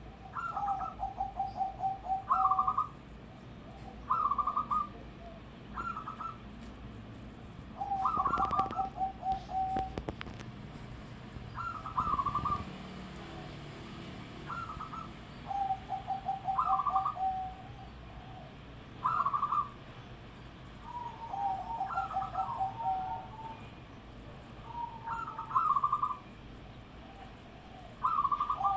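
Zebra dove (perkutut) cooing: phrases of short higher notes and a rolling, quickly pulsed lower coo, repeated every few seconds.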